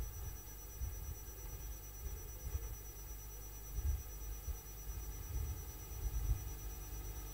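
Quiet room tone: a faint steady hiss and hum, with scattered soft low thumps.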